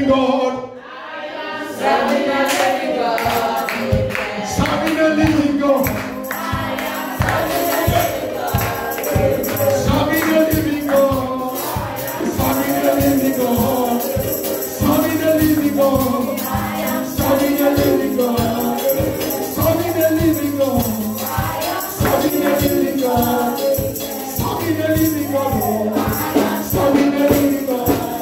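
Gospel praise song: a choir singing repeated phrases over a band with bass and a steady beat, with tambourine shaking along.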